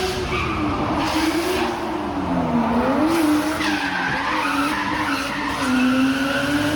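Drift car sliding at high revs: the engine note holds high, dipping and rising in pitch, over a steady hiss of tyres skidding.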